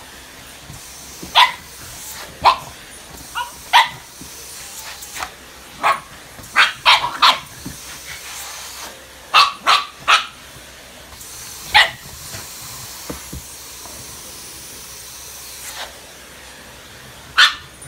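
A Shiba Inu barking at a vacuum cleaner that is being run over her bed: a dozen or so short, sharp, high barks at irregular intervals, some in quick runs of two or three, over the steady hiss of the running vacuum.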